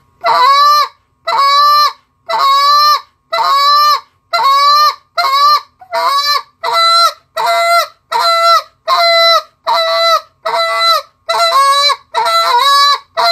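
Reed goose call blown by mouth in a run of about fourteen moans, roughly one a second. Each starts with a sharp upward jump, the spit, then holds its pitch before breaking off. Toward the end the calls come shorter and quicker.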